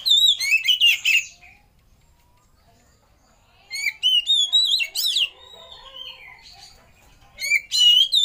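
Oriental magpie-robin singing: three bursts of loud, rapid whistled phrases with quick up-and-down slurs, separated by pauses of about two seconds.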